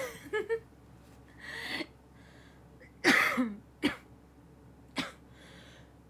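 A woman's coughing fit: about five short coughs spread over several seconds, the loudest about three seconds in.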